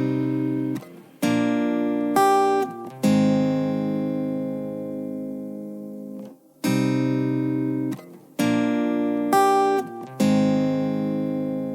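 Background music with no singing: guitar chords struck and left to ring out, fading between strikes in a repeating pattern.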